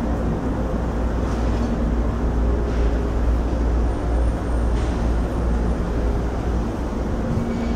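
Cabin running noise inside a JR East E127 series electric train car: a steady low rumble of the wheels on the rails with a faint steady motor hum, and a few soft clicks.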